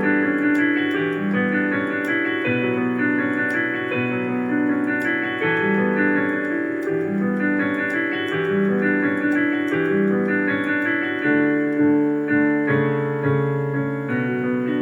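Instrumental music played on a keyboard with a piano sound, a steady run of changing chords and notes with no singing.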